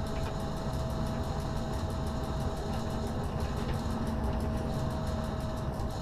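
Cab interior of a Z 6400 electric multiple unit running at speed: a steady low rumble of the wheels on the track, with a thin steady tone above it that stops near the end.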